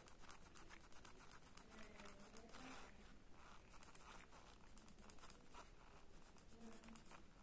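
Faint scratching of a mechanical pencil's lead on paper in many quick, short shading strokes.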